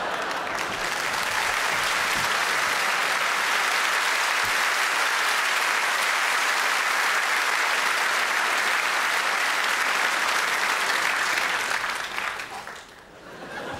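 Audience applauding steadily, dying away about a second before the end.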